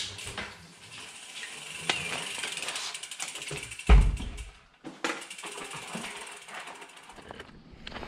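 Rear freewheel hub of a dirt-jump hardtail mountain bike clicking in a rapid, continuous run of ratchet ticks as the bike is wheeled along without pedalling. A single heavy thump about four seconds in.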